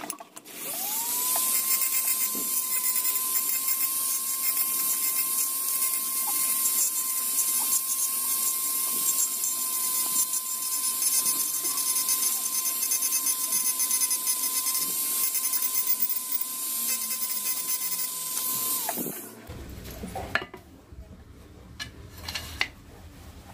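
Handheld mini engraving grinder spinning up with a rising whine, then running at a steady high pitch while its burr grinds into wood, carving the knife handle. The motor shuts off and winds down about 19 seconds in.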